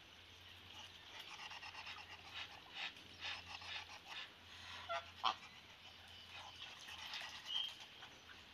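Muscovy drake "talking": a run of faint, breathy hissing huffs in short strokes, loudest about five seconds in.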